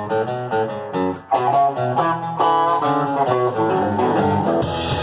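Country rock band playing a song's instrumental intro: guitar picking a quick riff of single notes over bass, with drums coming in with cymbals near the end.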